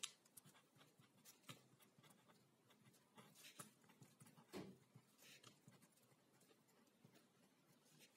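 Ballpoint pen writing on a sheet of paper: faint, irregular scratching strokes and light ticks as figures are written.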